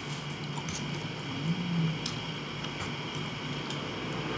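Metal fork twirling and lifting spaghetti on a ceramic plate, with a few faint clinks, over a low hum that is loudest in the first half.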